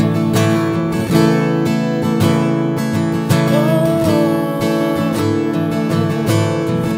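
Tombstone 430NAT acoustic guitar strummed in a steady rhythm of chords, with a man's voice singing along.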